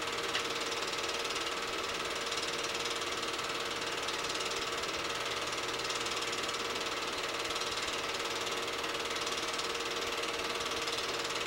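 An 8mm film projector running: a steady mechanical chatter from the film-advance mechanism over a constant hum.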